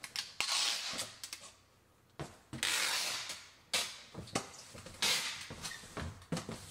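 Packing tape being pulled off a handheld tape gun and run along the seams of a cardboard box: several long rasping stretches of tape unrolling, with sharp clicks and taps between them.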